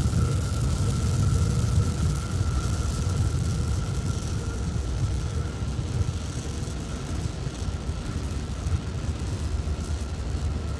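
Low rumble of Starship SN11's three Raptor rocket engines during ascent, easing off slowly as the vehicle climbs away.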